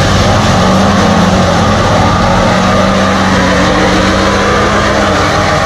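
Lifted pickup truck's engine held at high, steady revs in a burnout, its rear tyres spinning on asphalt. The engine note rises slightly about a second in and drops away shortly before the end.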